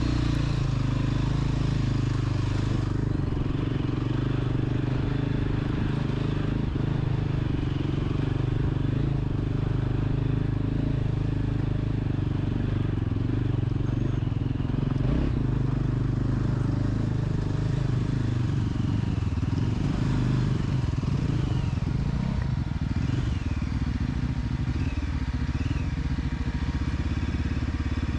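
Single-cylinder engine of a Yezdi Adventure motorcycle running steadily at low revs while riding off-road, the sound turning rougher and more uneven from about halfway through.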